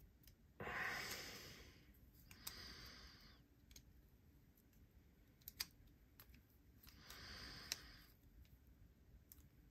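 Small sharp clicks from the parts of a Mallery Designs Phorus folding knife being handled as it is reassembled, a close pair about halfway through and another near the end. There are three soft rushes of noise, the first, a second in, the loudest.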